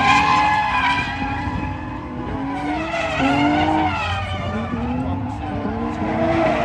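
Drift cars sliding through a corner: engines revving up and down at high revs while the tyres skid and squeal.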